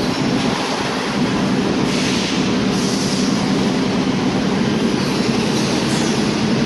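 Automatic film shrink-wrapping machine on a bottled-water line running, a steady mechanical hum and rumble with a broad hiss over it.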